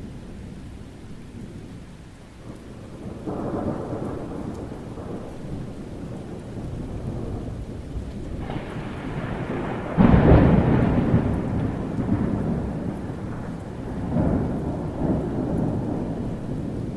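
Summer thunderstorm: steady rain under rolling thunder. Rumbles swell a few seconds in, a sudden loud thunderclap about ten seconds in is the loudest moment, and another rumble rolls in near the end.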